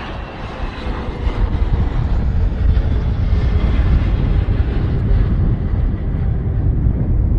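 Boeing 777 jet airliner on final approach for landing, its engines a deep steady rumble that grows louder over the first couple of seconds as it passes close, with a faint whine slowly falling in pitch.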